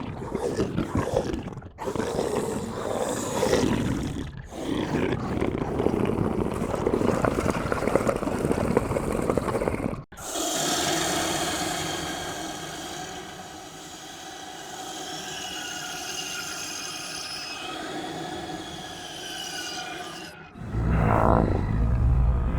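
Horror sound effects played one after another. First a harsh, noisy sound for about ten seconds, with two brief dropouts, that cuts off suddenly. Then a quieter eerie sound of several high wavering tones over a low drone, and a new loud, deep sound starts near the end.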